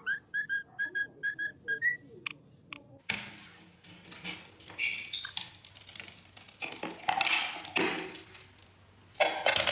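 A parrot whistling a quick run of about eight short, even notes on one pitch, the last one rising, over about two seconds. Then come a couple of sharp clicks and softer, mixed scuffling and chattering noises.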